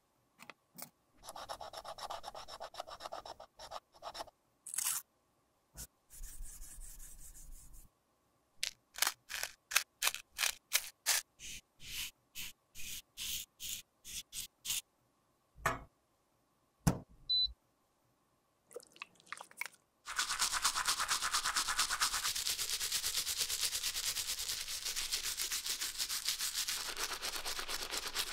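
Cracked pressed powder scraped and picked out of a compact with a small tool, then a makeup brush sweeping the loose powder into a glass jar in a run of short strokes, with a couple of sharp taps. From about two-thirds of the way in, a toothbrush scrubs the wet, soapy compact case in fast steady strokes, the loudest part.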